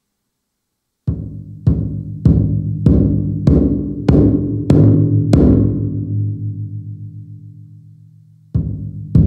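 Roland TAIKO-1 electronic taiko playing its Odaiko (large taiko drum) sound bank. It strikes eight times, a little over half a second apart, each a deep drum hit with a long reverberant ring. The last hit fades out over about three seconds, and then two more strikes come near the end.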